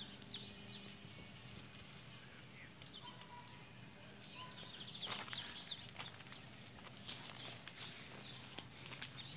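Small birds chirping in the roadside trees, with a person's footsteps on a dirt road. The chirps come thickest about five seconds in.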